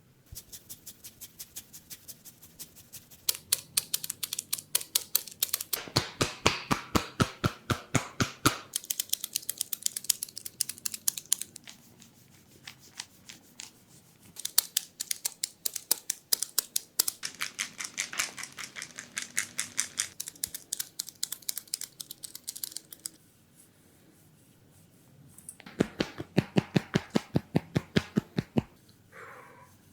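Rapid runs of sharp taps, many a second, in bursts of several seconds with short pauses between: hands tapping a person's head during a head massage.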